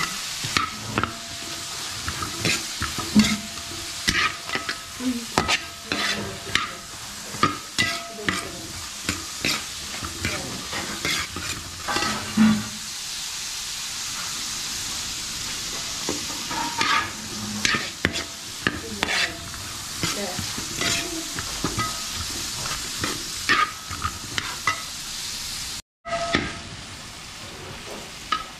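Chopped carrots, green beans and peas sizzling as they sauté in a metal pot, stirred with a perforated steel skimmer that scrapes and clinks against the pot over and over, the pot ringing briefly at some strokes.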